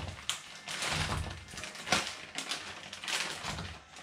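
Irregular clicks, knocks and scrapes of cooking utensils and containers being handled over a pot of sauce on the hob, with a sharper knock about a third of a second in and another near two seconds.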